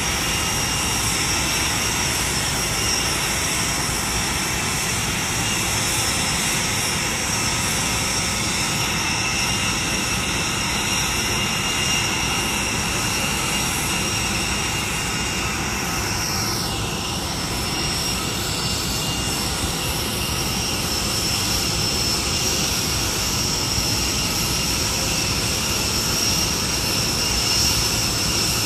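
Jet aircraft running on the apron: a steady loud roar with high whining tones held level throughout. A short falling whine sounds about two-thirds of the way through.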